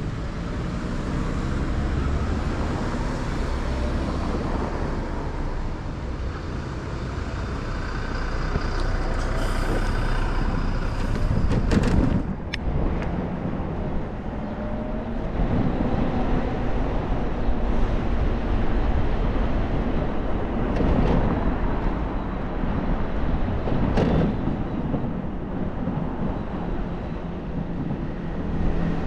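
Road traffic heard from a moving electric scooter, with wind rumbling on the helmet-mounted microphone. Sharp, louder noises stand out about twelve seconds in and again near twenty-four seconds.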